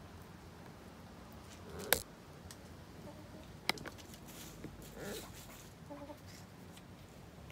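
Hens clucking softly a few times while feeding, with two sharp clicks about two and three and a half seconds in.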